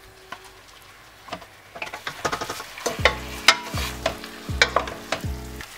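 Wooden spatula stirring chicken pieces in a stainless steel pot, scraping and knocking against the metal, over a light sizzle of oil. From about three seconds in, a repeating low tone sounds along with the knocks.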